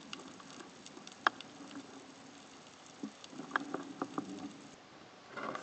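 Underwater sound from a camera below the surface: scattered clicks and crackles, a sharp click about a second in and a cluster of knocks around the middle, over a faint low hum.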